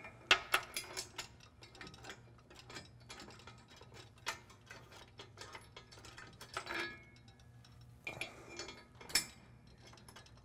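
Irregular small metal clicks and rattles of a steel bolt, washer and clip-in square-nut handle being worked inside a truck frame rail as the bolt is lined up and threaded in by hand, with a sharper knock about nine seconds in.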